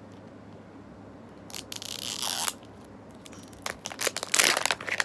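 Wrapping being torn off an LOL Surprise toy ball: one tear lasting under a second about two seconds in, then a quick run of crinkling and tearing near the end.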